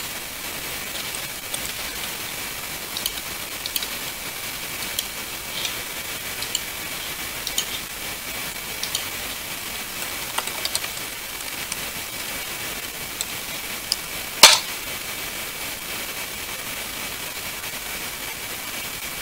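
Steady microphone hiss with faint, scattered computer-keyboard key clicks and a faint steady high whine; one much sharper key strike stands out about 14 seconds in.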